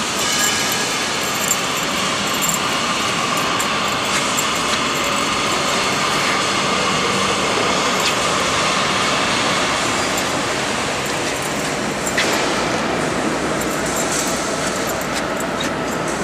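Steady industrial machinery noise, with a sharp click about twelve seconds in.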